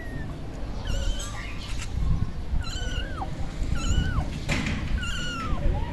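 Young kitten mewing repeatedly, about five thin, high-pitched mews roughly a second apart, several dropping in pitch at the end, over a low rumble.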